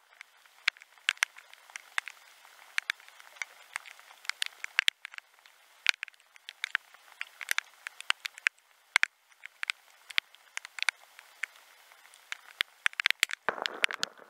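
Raindrops ticking irregularly on a head-mounted action camera's housing, several sharp taps a second, with a brief rustle near the end.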